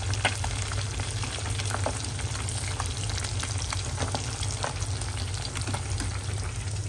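Rohu fish pieces frying in hot oil in a kadhai: a steady sizzle with many scattered crackling pops as the pieces are lifted out with a slotted steel spoon, over a low steady hum.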